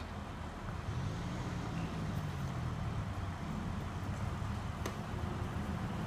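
Mobile truck crane's diesel engine running, revving up about a second in and holding the higher speed while the crane holds and shifts a suspended modular home section.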